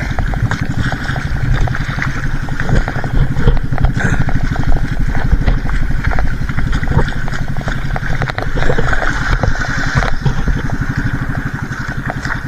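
Outrigger fishing boat's engine running steadily, its firing an even, rapid pulsing.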